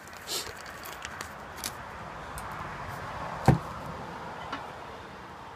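Hands working on a van's metal roof and solar panel mount: light clicks, then one sharp knock about three and a half seconds in, over a steady hiss that swells a little and fades.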